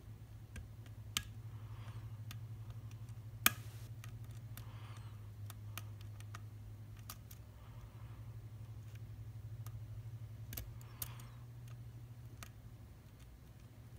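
Small scattered clicks of a lock pick working the pins inside an Abus C73 padlock, with one sharper click about three and a half seconds in, over a steady low hum.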